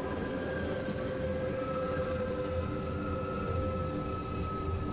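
Rhaetian Railway Bernina-line train running on the tight Montebello curve, its wheels squealing against the rails. Several steady high squealing tones sit over the low running noise of the train.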